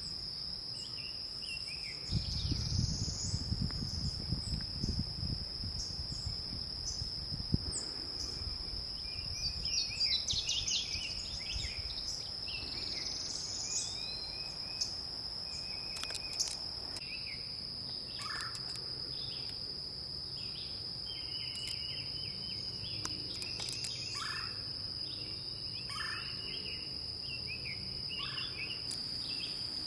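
Outdoor ambience of insects droning in one steady high tone, with birds chirping and calling on and off. A low rumble comes in about two seconds in and fades out by about eight seconds.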